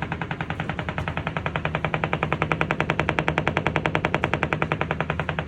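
Rapid, steady banging from inside a wall, about a dozen knocks a second, keeping an even beat throughout.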